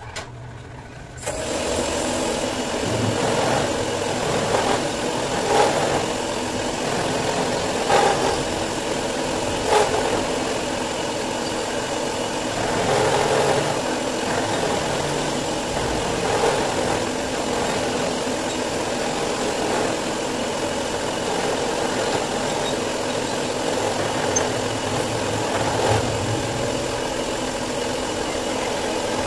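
Milling machine running, its end mill cutting a slot into an aluminium motorcycle cylinder head: a steady motor hum with grinding cutting noise that gets louder about a second in, and a few short, sharper cutting noises.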